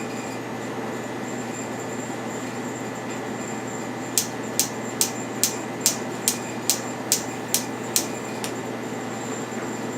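Gas range spark ignitor clicking: eleven sharp, evenly spaced clicks about a second in from the middle, roughly two to three a second, then stopping. A steady hum runs underneath.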